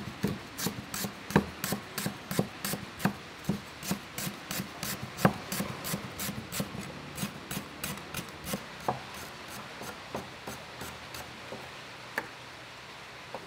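Cleaver slicing through a lemongrass stalk onto a wooden chopping board, a quick even run of sharp chops about three a second. The chopping slows and stops about eleven seconds in, with one last chop a second later.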